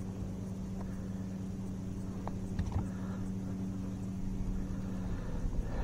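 A steady low motor hum with a constant tone, and a couple of faint clicks about two and a half seconds in.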